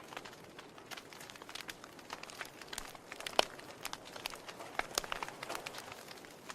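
Wood fire crackling: irregular sharp pops and snaps over a soft steady hiss, with one louder pop a little past the middle.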